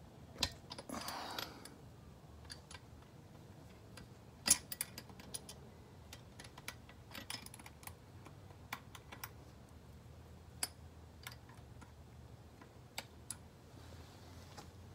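Irregular small metal clicks and taps of a wrench working the nut of the control cable retainer under a Volvo Penta AQ270 outdrive, with a short scrape about a second in.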